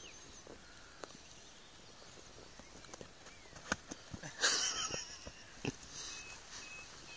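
A golf iron striking the ball off the fairway turf with a sharp click a little past halfway through, followed by a brief loud rush of noise; otherwise quiet outdoor air with faint ticks.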